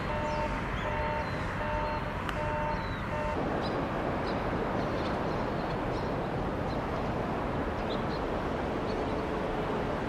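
A railway two-tone electronic warning alarm beeping in a steady alternating rhythm, cutting off about three seconds in. Under it a steady rushing rumble runs on, with faint high chirps scattered through.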